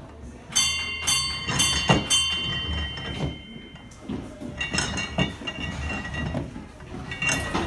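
Metal being struck: a quick series of sharp metallic knocks leaves a ringing tone that dies away a few seconds later, followed by a few more clinks.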